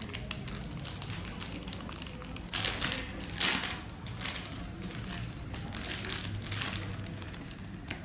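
Plastic squishy packaging crinkling and rustling as it is handled and opened, in bursts, loudest about two and a half to four seconds in.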